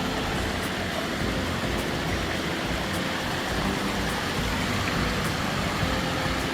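Waterfall rushing steadily, a constant dense roar of falling water.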